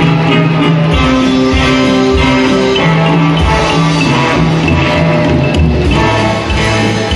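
Loud show music playing throughout, with held notes over a steady, repeating bass line.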